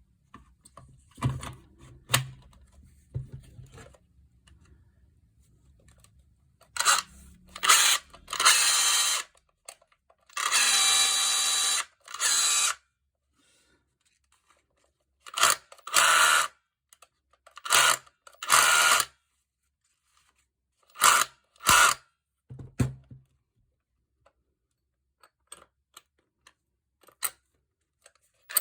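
Makita HR244D cordless hammer drill run in a series of short bursts, the longest about a second and a half, with gaps between them. A few quieter clicks and knocks come in the first few seconds.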